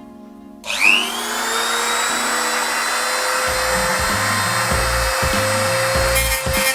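A small high-speed electric tool motor spins up about a second in, its whine rising quickly in pitch and then holding steady with a hiss, as it runs to cut a hole in a plastic PC case wider. Background music plays underneath.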